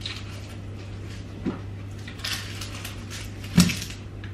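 Kitchenware being handled on a counter: a few light clatters and scrapes, then one loud knock about three and a half seconds in, over a steady low hum.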